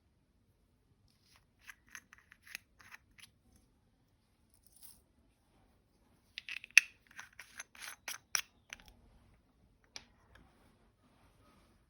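Short crisp clicks and snips from small objects being handled, in two quick bursts, the second and louder one about halfway through, with one more click near the end.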